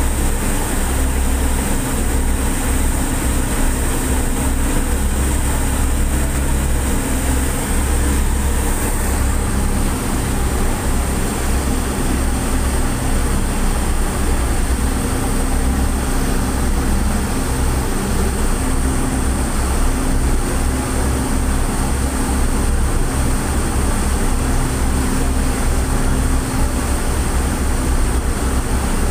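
Steady drone of the passenger ship m/v Calucin's engines under way, mixed with the rush of its churning wake. A low, uneven rumble of wind buffets the microphone on the open deck.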